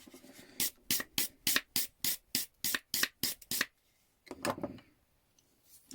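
A quick run of even, scratchy rubbing strokes, about three a second for some three seconds, worked over an old hand tool, followed by a short fainter rustle.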